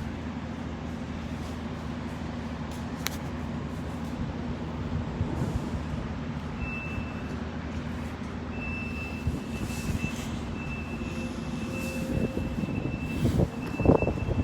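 Heavy vehicle's engine running with a steady low hum. From about halfway through, a high-pitched reversing alarm beeps in long beeps. A few loud knocks near the end.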